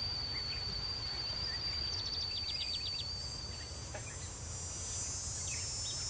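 Insects singing outdoors: a steady high-pitched trill that stops about four seconds in, with a quick run of chirps around the two-second mark. A higher, hissing buzz swells near the end, over a low steady rumble.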